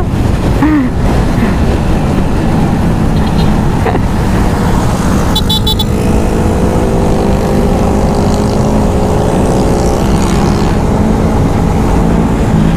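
Motorcycle riding at a steady cruise, heavy wind noise buffeting the microphone, with a steady engine note coming through from about halfway in.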